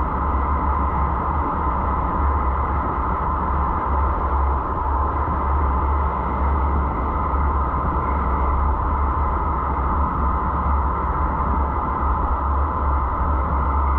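Steady road and wind noise of a car driving, picked up by the dashcam's microphone: a constant low rumble under an even hiss.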